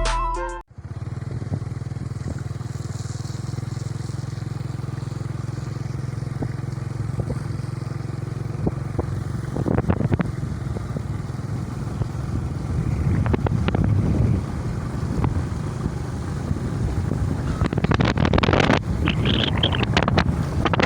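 Music cuts off under a second in, then a small engine runs steadily, with a few louder rattling stretches near the middle and toward the end.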